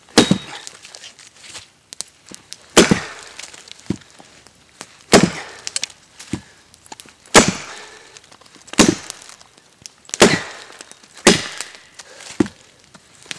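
Hatchet chopping into a fallen oak limb: about eight hard strikes, one every one to two and a half seconds, with a few lighter knocks between them.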